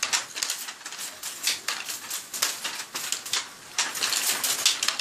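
Wooden handloom weaving Dhaka cloth: a rapid, uneven clatter of sharp wooden clacks, several a second, as the weaver works the loom.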